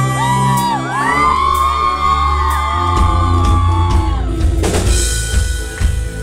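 Live pop band performance: a female lead vocal sings long held notes that bend up and down, over bass and drums in a large hall, with a brief burst of noise about three-quarters of the way through.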